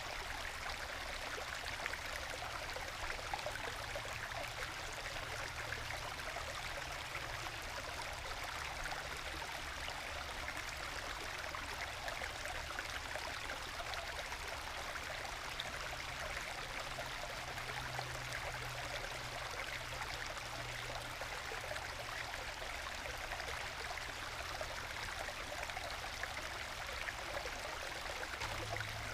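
Small forest stream babbling and gurgling as it trickles over low waterfalls worn into bedrock, into small plunge pools; a steady, gentle flow of water.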